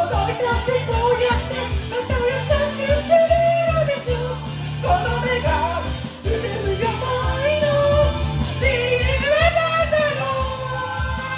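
A man singing a Japanese pop-rock song in a high register over a backing track with bass and drums. He holds long notes that waver in pitch and slides up into a high phrase near the end.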